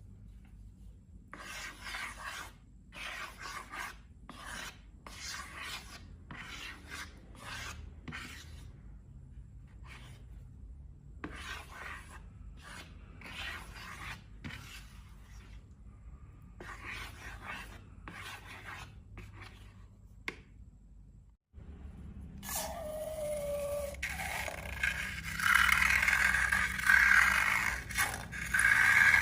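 Repeated scraping and rubbing strokes, one every half second to a second, typical of slime or a balloon being worked by hand. Near the end, after a brief break, it turns into louder, denser rubbing with a short squeaky tone that falls slightly.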